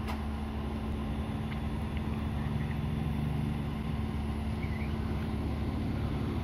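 Hitachi EX130 amphibious excavator's diesel engine running steadily with an even low hum.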